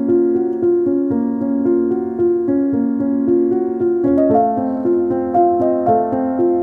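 Background music: a gentle piano or electric-piano melody in steady, even notes, shifting to a higher pattern about four seconds in.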